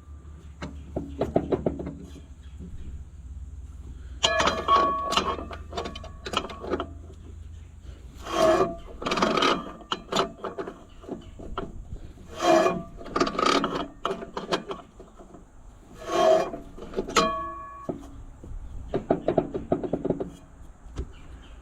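Hand-tool work on metal, likely fastening the grinder's hardware: about six bursts of rapid metallic clicking and rattling, each lasting a second or so, roughly every four seconds, with a faint low hum underneath.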